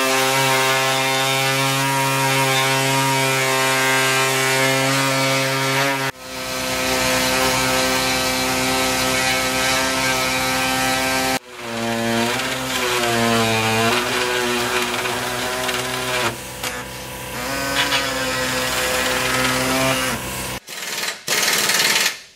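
Handheld air-powered cutoff saw trimming the brittle plastic flange at the back of a grille. It runs at a steady buzzing pitch in three long stretches, broken briefly about 6 and 11 seconds in, and in the last stretch the pitch dips and wavers as the blade bites. It stops about 20 seconds in, with a couple of short blips after.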